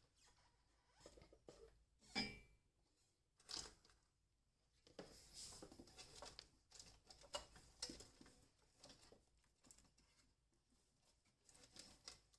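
Faint scattered clicks, knocks and rustling of hands searching and handling small parts, with the loudest knock about two seconds in.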